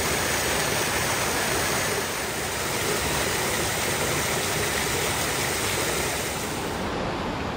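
Small creek waterfall pouring over rocks: a steady rushing of water.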